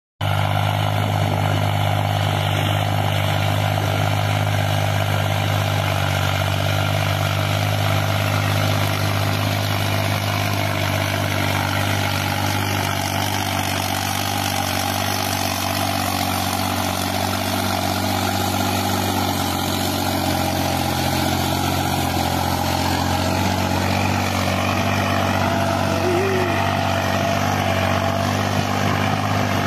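New Holland 5620 tractor's diesel engine running steadily under load as it pulls a cultivator through ploughed soil: a low, even drone.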